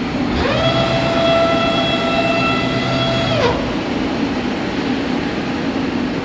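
Large 5-axis CNC machining centre traversing its tool head along the Y-axis. A drive whine glides up in pitch about half a second in, holds steady for about three seconds, then glides down and stops, over steady machine noise and hum.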